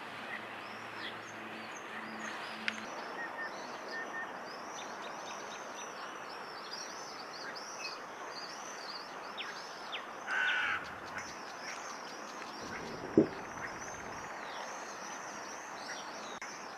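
Outdoor lakeside ambience with a steady hiss and many small birds chirping high and continuously. A louder harsh bird call comes about ten seconds in, and a single sharp knock about thirteen seconds in.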